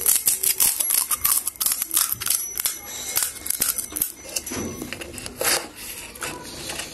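Crisp panipuri shells crunching as they are bitten and chewed close to the microphone: a dense run of sharp crackles that thins out after about four seconds.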